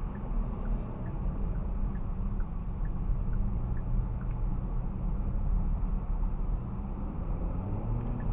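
Steady engine and road rumble inside a moving car, picked up by a dashcam microphone, with faint light ticks a little under twice a second in the first half. The sound cuts off abruptly at the end.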